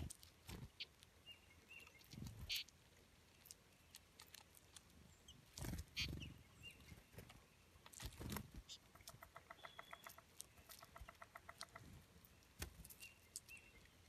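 Small songbirds, mostly American goldfinches, feeding on seed: scattered sharp clicks of pecking and cracking sunflower seeds, a few soft wing flutters as birds land and take off, and faint short chirps. About nine seconds in, a rapid pulsed trill runs for two or three seconds.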